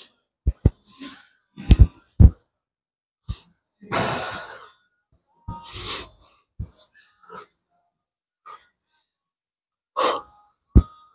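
A man breathing hard with sharp exhales and gasps while doing cable face pulls for the rear shoulders. Short, dull low thumps fall in the first couple of seconds.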